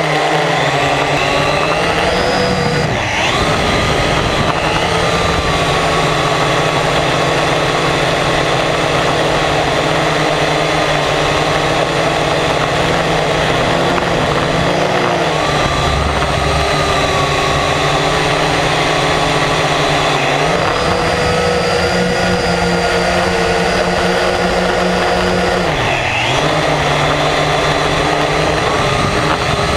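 Multirotor drone's electric motors and propellers whirring steadily, heard from the drone's own camera, the pitch dipping and shifting several times as the motors change speed.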